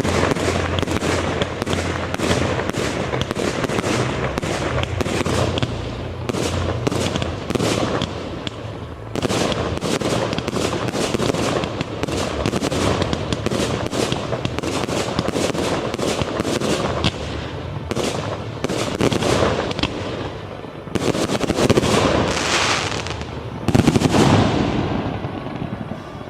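Aerial fireworks display: a rapid, continuous barrage of shell bursts and crackling reports, with two louder, heavier bursts near the end.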